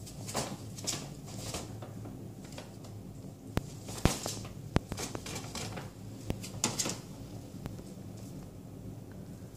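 Brown paper grocery bag rustling and crinkling as a rabbit shifts and turns around inside it, with a few sharp clicks about four seconds in.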